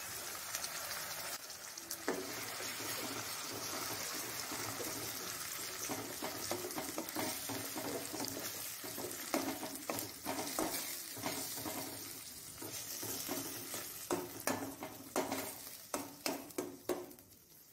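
Tomato puree and chopped onion sizzling in hot oil in a stainless steel kadai as the masala base is sautéed. A steel spoon stirs and scrapes against the pan, and the scrapes and clinks come more often from about six seconds in.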